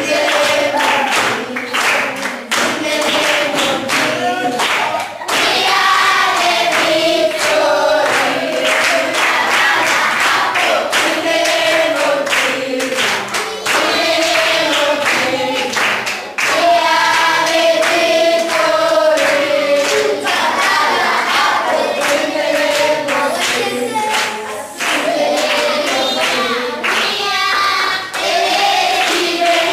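A group of schoolchildren singing a song together, loud and sustained, with regular sharp hand claps keeping time.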